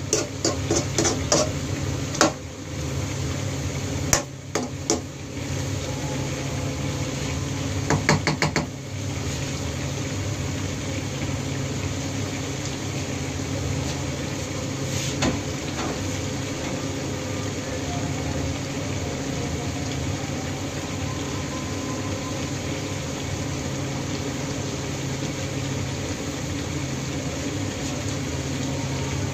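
A metal spatula knocks and clinks against a frying pan of cuttlefish in a scattered string of taps over the first nine seconds or so, with a quick run of taps near the end of that stretch. After that comes a steady simmer of the cuttlefish in its sauce over a low hum.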